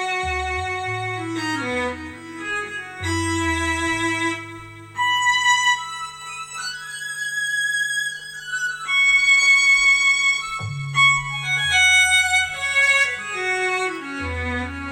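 Korg Kross 2 synthesizer playing a melody of held notes on a violin-like patch, over a stepping bass line and a steady drone.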